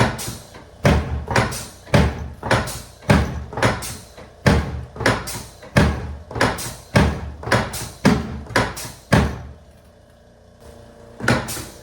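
A run of sharp knocks, about two a second, stopping about nine seconds in; two more knocks come near the end.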